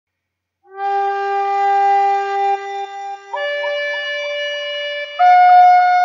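Native American flute played slowly, starting under a second in with a long held note, then stepping up to a higher note with quick grace-note flicks just past three seconds, and to a higher note again a little after five seconds.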